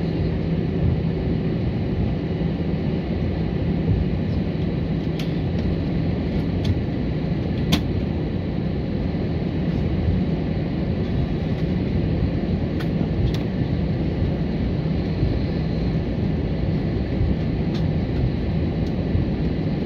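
Steady low rumble heard from inside a vehicle rolling slowly across an airport apron, with a constant low hum and a few faint clicks.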